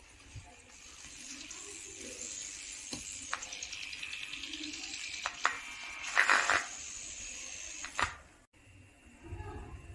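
A small loudspeaker driven by a homemade LM386 amplifier giving a steady hiss, with clicks and crackling pops as the volume pot and audio jack are handled. The hiss cuts off suddenly near the end.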